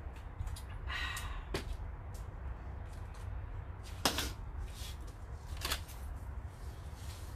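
A few light clicks and knocks of small objects being picked up and set down, one sharper clack about four seconds in, over a low steady hum.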